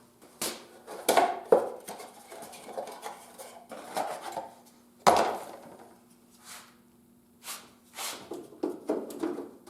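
Metal interior door-handle parts being handled and set down: a string of sharp clinks and knocks, the loudest about five seconds in.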